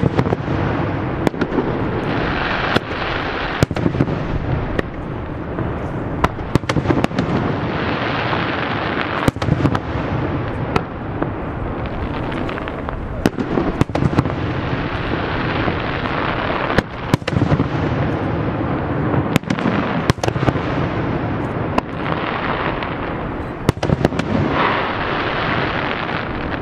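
Aerial fireworks display in full swing: sharp bangs and crackles come irregularly, often several a second, over a continuous rumble and crackle of shells bursting.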